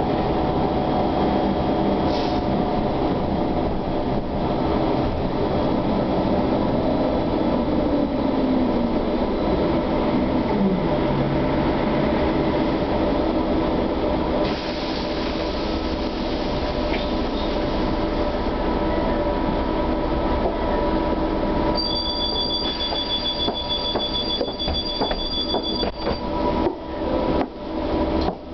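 Cabin sound of a SOR TN12A trolleybus under way: the electric drive whines steadily over road and body noise, with a whine that falls in pitch about a third of the way in as it slows. A high two-tone beeping sounds for about four seconds near the end, followed by a few knocks and bumps.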